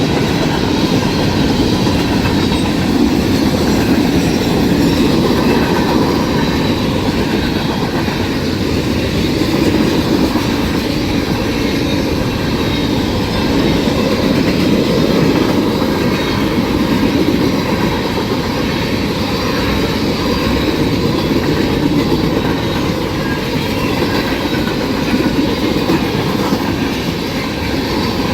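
CSX freight train passing through a grade crossing, a steady loud rumble of the train rolling past.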